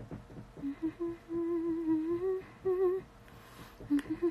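A woman humming a slow tune: a few short notes, then a longer phrase that wavers in pitch, and more short notes near the end. A single sharp click comes about four seconds in.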